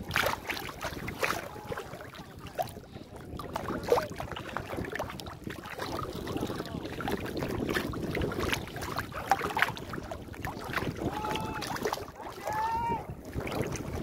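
Shallow sea water sloshing and swishing around legs wading through it, with faint distant voices near the end.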